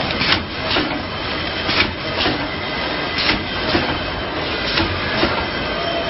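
Bubble mailer bag making machine running: a steady mechanical whir and hiss, with a pair of sharp clacks about every one and a half seconds as the machine cycles.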